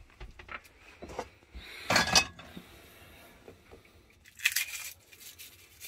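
Garlic being handled at a kitchen counter: two short crackling, rustling bursts, a louder one about two seconds in and another a little past four seconds, with a few light clicks and knocks between.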